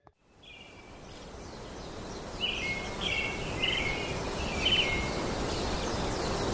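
Outdoor ambience fading in over the first couple of seconds: a steady rushing background with a small bird calling repeatedly, short chirping phrases every half second to a second.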